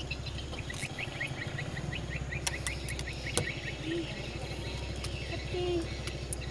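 Birds chirping, with a quick run of short notes in the first couple of seconds and scattered calls after, over a steady low rumble.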